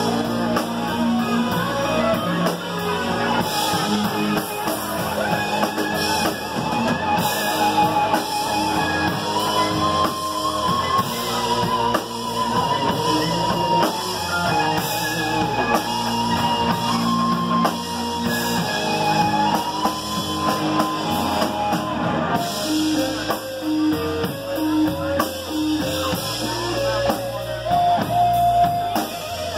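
Live band music: two electric guitars, a solid-body and a hollow-body, playing sustained lead lines over drums in a rock style.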